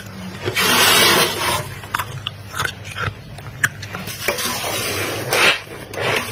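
Crunchy freezer frost being crunched: two long gritty crunches, about a second in and again near five seconds, with short clicks and ticks between.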